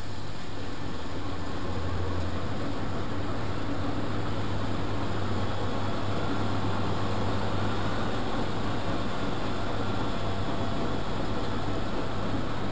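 Vintage washing machine running steadily: a constant low motor hum under an even whir, with no change across the stretch.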